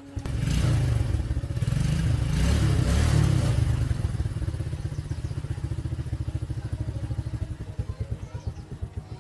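Small motorcycle engine starting up and revving briefly, then settling to a putting idle whose beats slow until it stops at the end.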